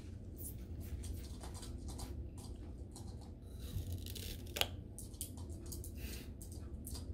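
Small Morkie puppy chewing and mouthing a Happy Meal toy: scattered small clicks and scrapes of teeth on the toy, with a brief rustle about four seconds in and a sharp click just after.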